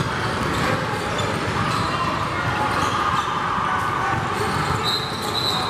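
Youth basketball game sounds in a gym: the ball dribbling on the hardwood floor, with voices from players and spectators echoing in the hall. A thin high steady tone comes in near the end.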